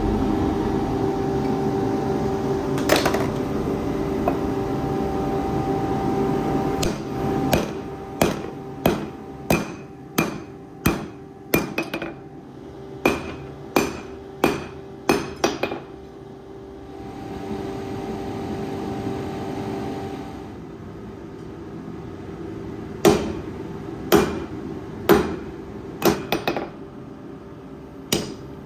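Hand hammer striking a red-hot steel knife blade on an anvil, in two runs of sharp, briefly ringing blows about one and a half a second apart. Between them, and at the start, the forge's blower runs with a steady hum.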